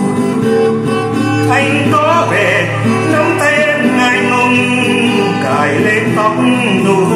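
Music: acoustic guitar accompanying a man singing a slow song.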